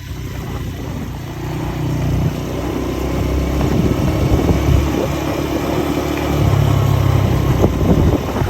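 A steady motor hum under a rumbling noise of riding along, getting louder over the first few seconds.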